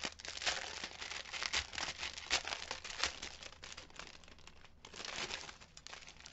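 Small clear plastic bags of diamond-painting drills crinkling as they are handled and opened, an irregular run of crackles.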